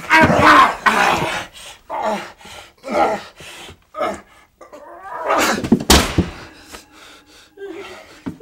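Harsh human growling and pained cries of a struggle on the floor, in a string of short loud bursts, the sharpest about six seconds in, with a drawn-out moan near the end.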